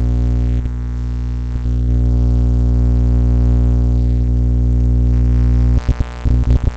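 Microwave oven running: a loud, steady low hum with a buzzing edge, which cuts in and out several times near the end.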